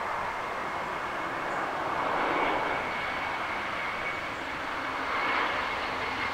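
Airbus A321-211's CFM56 turbofan engines on landing approach: a steady jet rush with a thin high fan whine, swelling twice as the airliner passes low in the flare.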